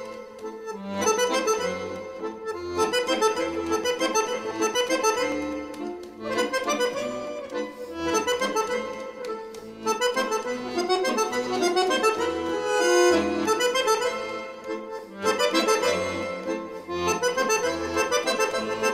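Argentine tango music, led by a bandoneon playing the melody over a bass that pulses on the beat.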